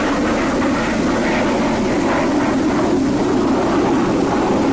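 Steady jet aircraft engine noise, an even rushing sound without breaks.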